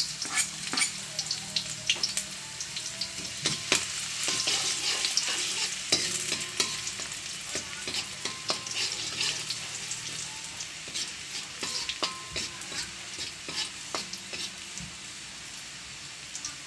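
Chopped garlic and ginger sizzling in hot oil in a metal wok, with many small crackles and pops, while a spatula stirs and scrapes against the pan. The sizzle slowly dies down toward the end.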